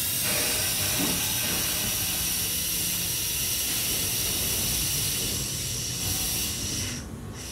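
Tobu 9000 series electric train pulling away slowly: a steady hiss with thin high whining tones from its chopper-controlled drive, and its motor bogie rolling over the rails. The sound drops off near the end.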